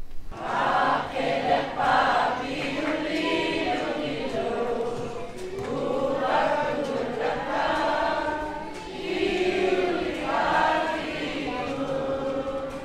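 Mixed choir of men and women singing together.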